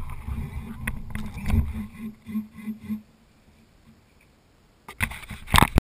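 Tamiya Bullhead RC monster truck crawling through tall grass on nearly flat batteries: its electric motors and gearboxes hum low while grass stalks tick and brush against the body, and it goes quiet about three seconds in. Near the end come loud knocks and rustling close to the microphone.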